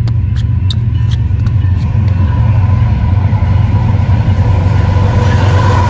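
BNSF freight train's diesel locomotives approaching, a loud steady low rumble that builds slightly as it nears.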